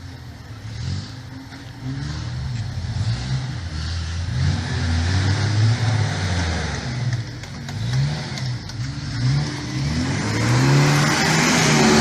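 Off-road 4x4's engine revving up and down over and over under load, getting louder near the end.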